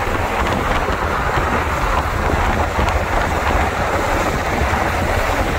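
Steady low rumble and road noise of a moving vehicle, even in level throughout.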